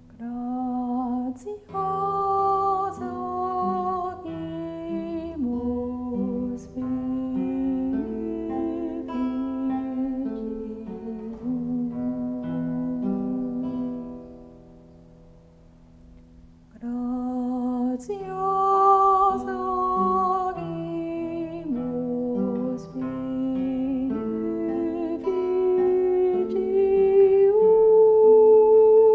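A woman's voice singing a slow, stepwise melody in two long phrases, with a pause of a few seconds between them; the second phrase climbs to a higher held note near the end.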